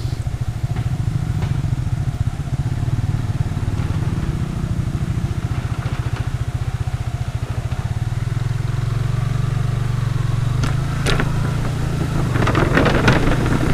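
Motorcycle engine running at a steady low speed with an even, rapid pulse, its note shifting slightly about eight seconds in. A few sharp clatters near the end.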